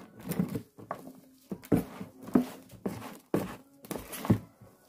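Gloved hand stirring damp potting soil in a tub: a run of about eight uneven scrapes and soft thuds as the soil is turned over.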